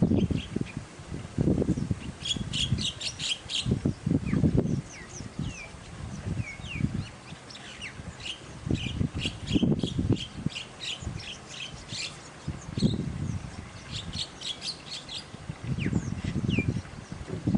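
Birds chirping, with short high calls and quick runs of rapid chirps. Irregular low rumbles come and go among them.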